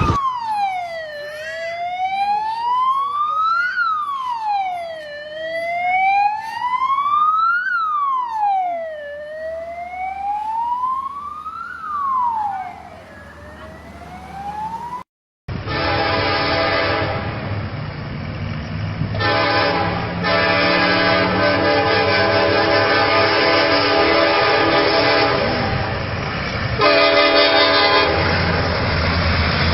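A wailing siren rises and falls about once every four seconds and fades away. It cuts off abruptly about halfway through, and a train horn then sounds a long multi-tone blast with a couple of short breaks, louder near the end.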